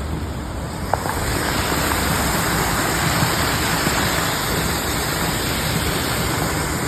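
Small waterfall and stream running water: a steady rushing noise that grows a little louder about a second in.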